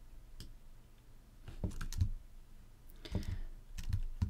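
Computer keyboard and mouse clicks in scattered small clusters of taps, over a faint steady low hum.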